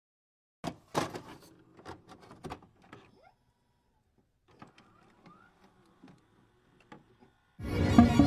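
A handful of sharp clicks and knocks, then a few faint ticks, followed by music starting near the end.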